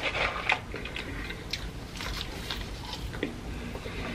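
A person biting and chewing a mouthful of fried fast food, a run of short, irregular mouth clicks.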